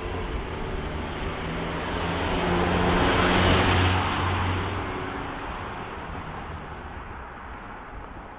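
A car passes close by: its engine hum and tyre noise swell to a peak about three and a half seconds in, then fade away.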